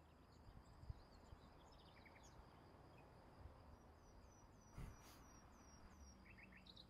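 Near silence with faint birds chirping: scattered small chirps and a quick run of short, falling chirps a little past the middle.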